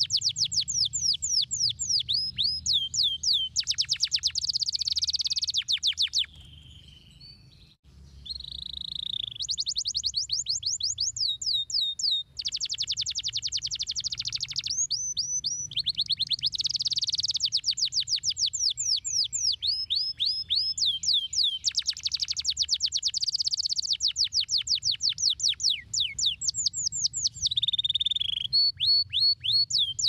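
Yellow domestic canary singing: long rolling phrases of rapid, high, downward-sweeping notes repeated many times a second, broken by a short pause about six seconds in.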